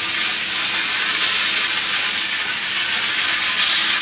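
Hornby Dublo model locomotive running laps of three-rail track: a steady hissing run of its motor and metal wheels on the rails. It runs smoothly, the motor sounding healthy.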